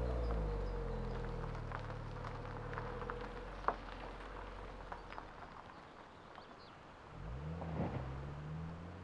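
A minivan's engine accelerating away, its note fading over about five seconds as it drives off, with scattered light clicks. About seven seconds in, another vehicle's engine rises and runs briefly.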